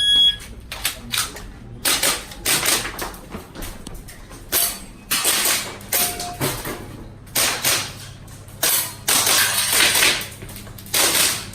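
A shot-timer beep, then a string of airsoft pistol shots fired at an uneven pace, single sharp pops and quick pairs.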